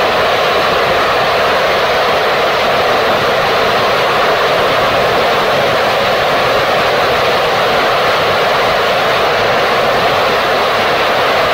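Gilmour Space 'Phoenix' third-stage liquid rocket engine firing mid-burn in a long-duration mission duty cycle test fire. Its exhaust makes a loud, steady rushing noise that does not change in level or pitch.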